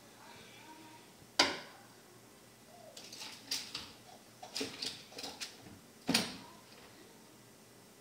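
Knocks and clattering from things being handled at a kitchen sink and garbage disposal: one sharp knock about a second and a half in, a run of small rattling clicks over the next few seconds, and another sharp knock about six seconds in.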